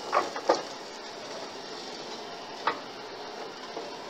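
Racks of pork ribs set down and arranged on a gas grill's grates: a few light knocks and clicks, two in the first second and one near three seconds in, over a steady faint hiss.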